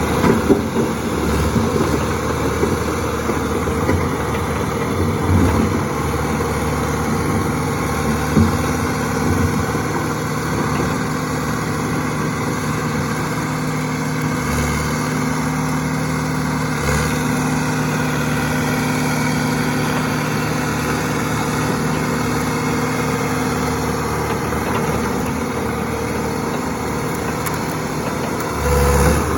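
John Deere 450C loader backhoe's diesel engine idling steadily, with a few short knocks in the first ten seconds.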